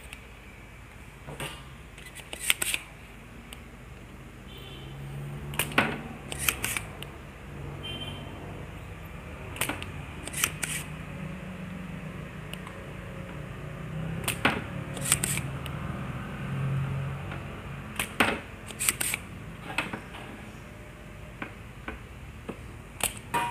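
Spring-loaded desoldering pump being cocked and fired to suck solder off a potentiometer's pins on an amplifier circuit board: sharp snapping clicks, mostly in pairs less than a second apart, repeated every few seconds.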